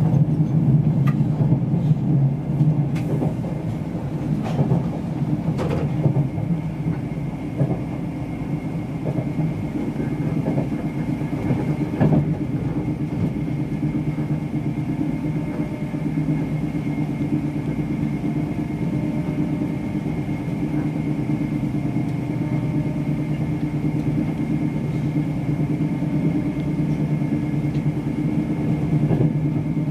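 Interior running noise of an InterCity 225 passenger coach at speed: a steady low rumble of wheels on rail with a faint steady high whine. A few sharp clicks come in the first several seconds, and another about twelve seconds in.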